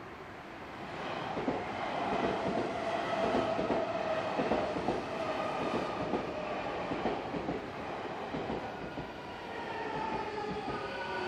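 Odakyu Line electric train passing, its wheels clacking over the rail joints with a steady motor whine. Near the end a whine falls in pitch.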